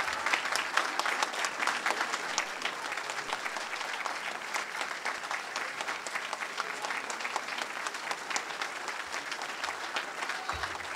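Audience applauding: a dense, steady clatter of many hands clapping, slightly louder at first.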